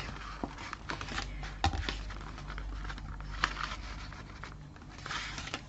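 Paper and card being handled: soft rustling and scraping, with a few light taps.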